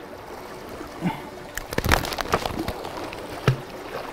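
Pliers and a struggling wrasse being handled while the lure is unhooked: a run of sharp clicks and knocks in the middle, the loudest near the end, over a steady wash of the sea.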